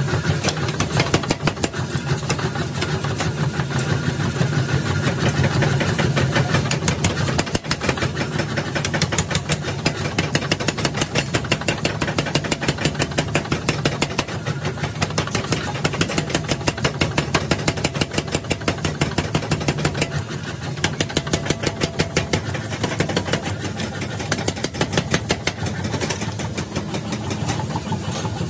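Power hammer pounding a red-hot pick-axe blank in rapid, even blows, over the steady hum of the running machine.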